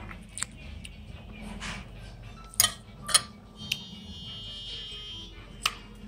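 A few sharp clicks and clinks over a steady low hum. About four seconds in, a high electronic tone sounds for about a second and a half.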